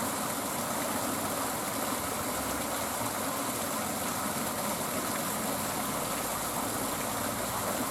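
Steady rush of stream water pouring over a little weir.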